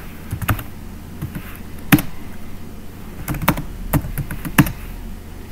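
Typing on a computer keyboard: a few separate key clicks at an uneven pace, over a steady low hum.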